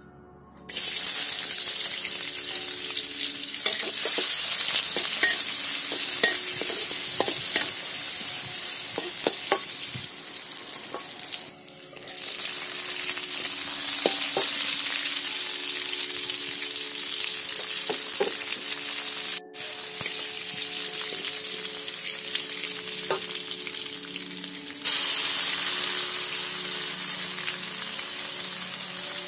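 Chopped ingredients frying in hot oil in a wok, a loud steady sizzle that starts suddenly about a second in as they hit the oil, with a metal spatula scraping and stirring against the pan. The sizzle drops out briefly twice and jumps louder near the end as more ingredients go into the oil.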